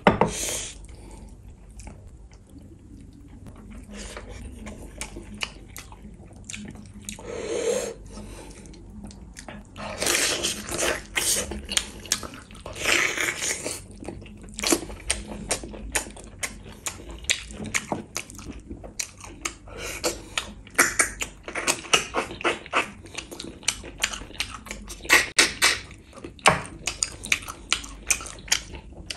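A person chewing curried meat and fish in thick sauce with the mouth open, with wet smacking and many sharp mouth clicks; sparse at first, then dense from about ten seconds in.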